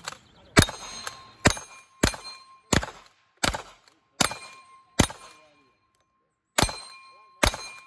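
Rifle shots fired in quick succession at steel targets, nine in all, each followed by a short metallic ring of the steel plate being hit. The shots come a little under a second apart, with a pause of about a second and a half before the last two.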